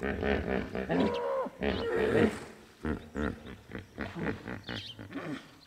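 Hippopotamuses in the river calling with a run of grunting honks, loudest in the first half and fading toward the end.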